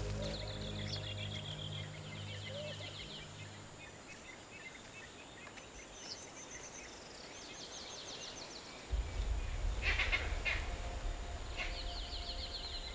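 Wild birds trilling and chirping in several bursts of rapid high notes, over a low steady hum that fades after a few seconds and comes back about nine seconds in.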